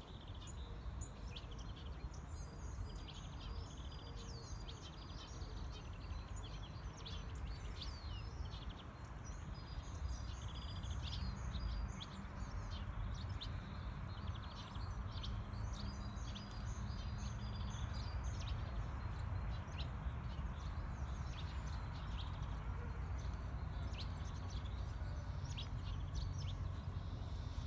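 Small songbirds calling and singing in short repeated chirps and a few held high notes, over a steady low hum of road traffic.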